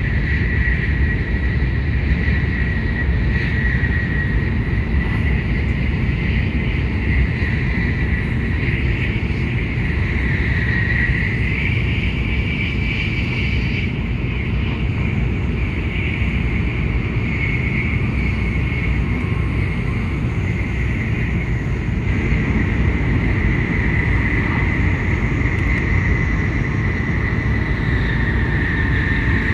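Running noise of an N700S Shinkansen heard inside the passenger cabin: a steady low rumble and hiss, with a thin high whine that drifts slightly up and down in pitch.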